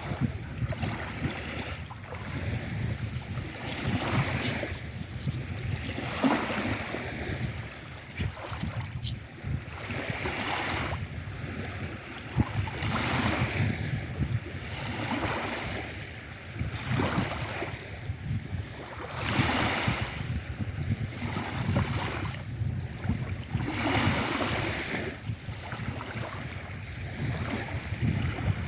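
Lake Erie waves breaking and washing up a beach, one surge every three seconds or so, with a low rumble of wind on the microphone.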